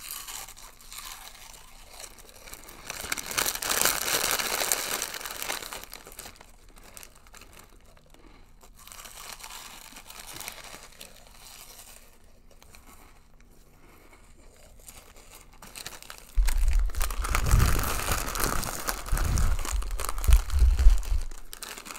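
Foil Funyuns snack bag crinkling as it is tipped and shaken into the mouth, mixed with crunching of the snack being eaten. There is a burst of crinkling about three seconds in, then a louder stretch with low thumps from about sixteen seconds in.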